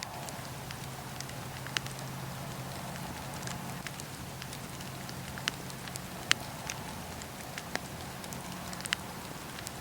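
Wood fire crackling in a fireplace: a steady soft hiss of the flames with scattered sharp pops and snaps, a handful of them louder than the rest.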